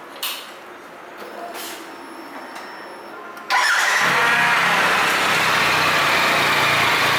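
Triumph Tiger 1200's inline-three engine starting about three and a half seconds in and settling straight into a steady idle through a newly fitted Arrow slip-on exhaust, just slightly louder than stock. A click comes shortly before.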